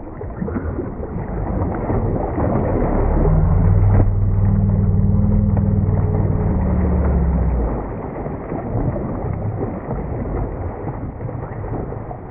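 Boat motor running in gear with a low, steady drone that grows louder from about two and a half seconds in and eases back at about eight seconds.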